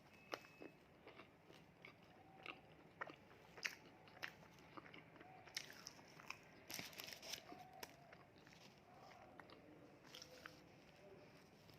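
A person eating fast food up close, with irregular crunchy bites and chewing. The crunches are densest about seven seconds in.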